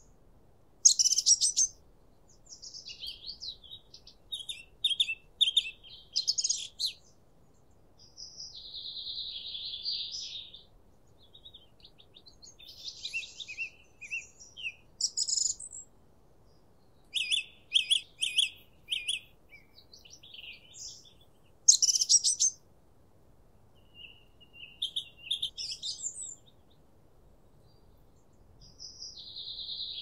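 Songbirds singing: a string of short, high-pitched phrases of quick chirps and twitters with pauses between them, and a couple of buzzy trills held about two seconds each.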